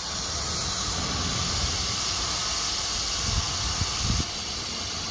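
Steady machine hiss from a CNC router, with a low rumble from its axis drives as the knife head is jogged with the hand wheel; the rumble swells about half a second in, has a few short low pulses near its end, and drops away after about four seconds.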